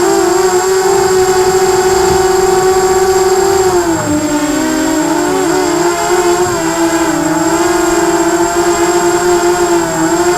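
Quadcopter's electric motors and propellers whining loudly and steadily, the pitch wavering with the throttle and dropping briefly about four seconds in before coming back up.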